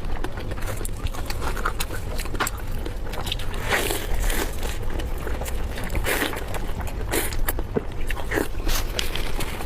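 Close-miked chewing of spicy pork belly: a steady run of wet mouth clicks and smacks, with a low steady hum underneath.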